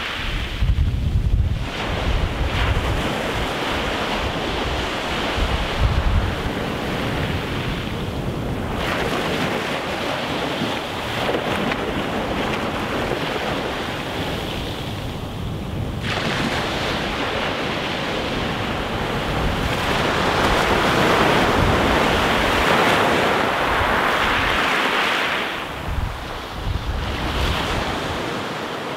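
Sea waves breaking and washing up a pebble shore, a steady surf that swells louder about two-thirds of the way through. Wind gusts rumble on the microphone in the first few seconds.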